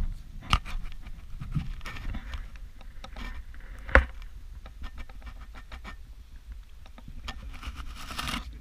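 Water sloshing and dripping around a kayak at rest, with scattered light knocks on the hull and one sharp knock about four seconds in.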